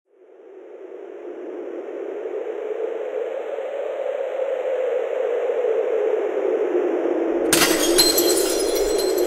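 Intro sound effect: a whoosh that swells steadily louder for about seven seconds, then a crash of shattering glass with tinkling shards near the end.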